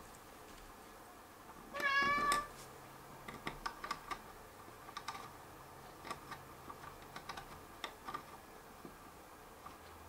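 A Maine Coon cat meows once, a short call about two seconds in. Around it come faint, irregular clicks and ticks of a hex key turning small screws into a DJI Phantom 3 drone's arm.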